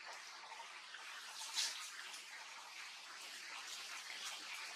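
Grass rustling and scuffing as young macaques wrestle and roll in it: a steady scratchy hiss with a sharper rustle about one and a half seconds in.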